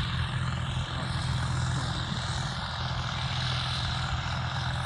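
Combine harvester running steadily while cutting wheat: a constant engine and machinery drone with a low hum.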